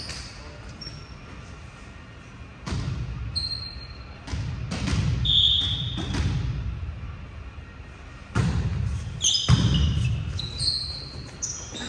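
Volleyball rally in a reverberant gym: the ball is struck or hits the floor four times with sharp smacks, and sneakers give short high squeaks on the court floor, most of them in the second half.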